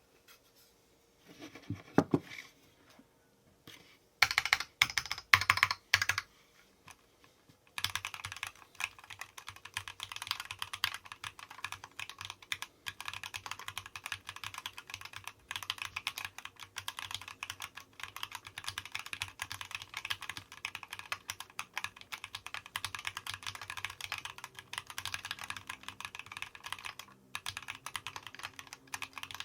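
Typing on a mechanical keyboard with linear red switches: a few sharp, separate keystrokes at first, then fast, continuous typing for most of the stretch, with a short pause near the end.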